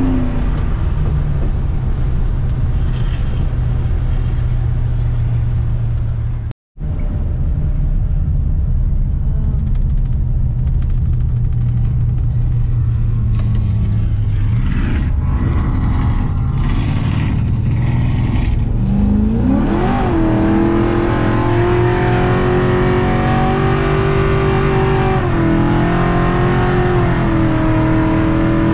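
Ford F-truck's engine heard from inside the cab, running steadily at low revs, with the sound cutting out for a moment about six and a half seconds in. About twenty seconds in it revs up, its pitch rising, then holds at higher revs as the truck accelerates.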